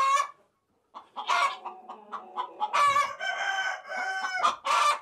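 A hen calling loudly in a string of squawks, one of them held for over a second near the middle. This is the noisy calling of a hen about to lay an egg.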